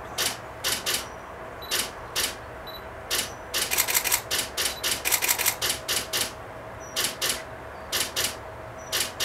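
Camera shutters clicking: single shots and pairs, with a fast run of clicks between about three and a half and six seconds in.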